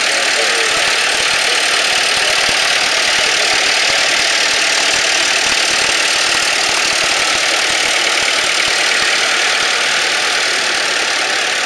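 Vintage farm tractors, including a Massey Ferguson 135, driving slowly past one after another, their engines running steadily at low speed.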